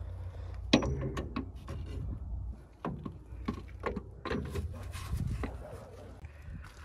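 Knocks and clicks of a new rear shock absorber being handled and guided into its mount beside the coil spring, its body bumping against the car's metal, the sharpest knock about a second in, over a steady low rumble.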